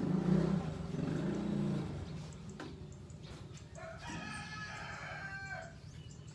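Rooster crowing once, a long call about four seconds in, after louder, lower-pitched sounds in the first two seconds.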